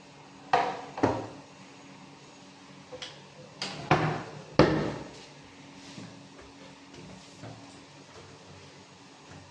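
Plywood kitchen cabinet doors being swung open and shut on their hinges, knocking as they close: two knocks in the first second, then a quick run of four about halfway through, the last the loudest, and faint clicks after.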